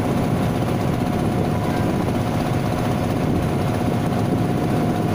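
River boat's engine running steadily with a fast, low chugging beat.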